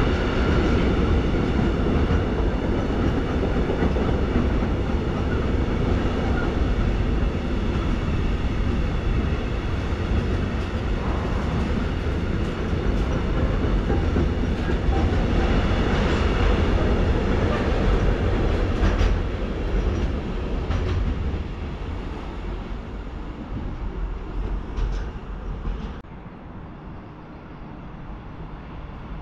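A train running through the station with a steady rumble of wheels on rails, dying away over the last third as it moves off.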